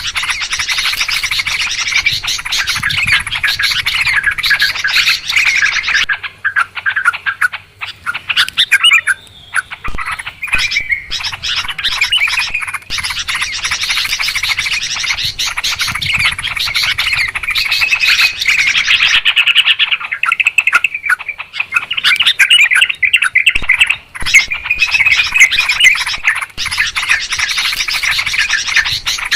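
Sooty-headed bulbuls chattering noisily, many quick bubbling calls overlapping almost without pause, broken by a few short lulls.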